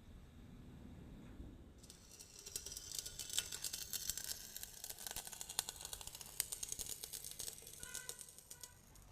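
Electric arc welding crackling: a dense, irregular run of fast sputtering clicks that starts about two seconds in and stops near the end.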